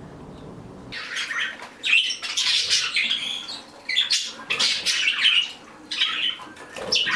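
A room full of pet birds chirping and chattering together, starting about a second in and running on in dense overlapping bursts with brief lulls.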